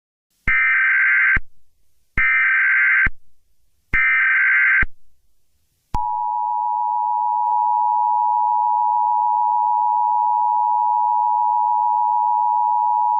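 Emergency Alert System tones: three short, identical bursts of SAME digital header data, about a second and a half apart, then, about six seconds in, the steady two-note EAS attention signal, which announces that an emergency alert message follows.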